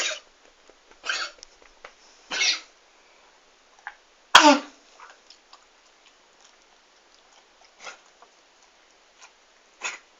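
Dog coughing in a string of short coughs, the loudest about four seconds in and fainter ones later, sounding as if it were choking: the constant cough of tracheobronchitis (kennel cough).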